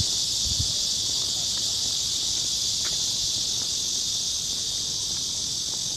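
A chorus of cicadas in the trees, keeping up a steady, dense, high-pitched drone.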